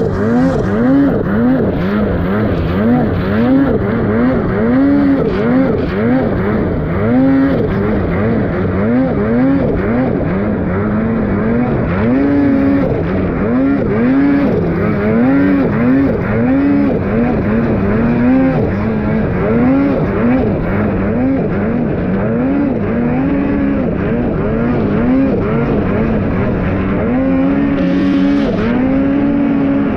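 Turbocharged two-stroke mountain snowmobile engine running hard through deep powder, its pitch rising and falling over and over, about once a second, as the throttle is worked on and off.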